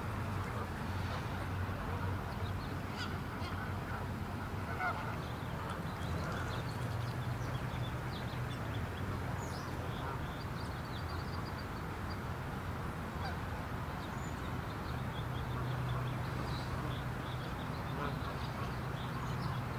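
Geese honking now and then over a steady outdoor background hum, with small birds chirping.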